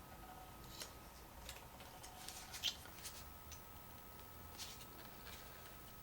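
Faint handling noise: scattered light clicks and rustles, the sharpest about two and a half seconds in, over a faint steady high hum.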